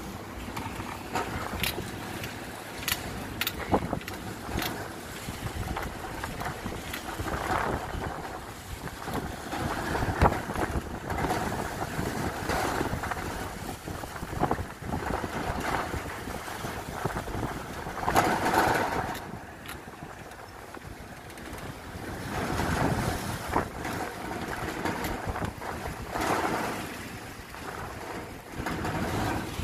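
Sandstorm wind blowing hard in surging gusts and buffeting the phone's microphone, with the strongest gust about two-thirds of the way through. A few sharp clicks or knocks come in the first few seconds.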